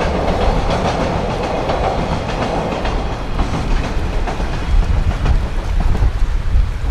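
Container wagons of a freight train rolling over a viaduct, their wheel-on-rail clatter fading away over the first three seconds or so. Wind buffets the microphone throughout with a gusty low rumble.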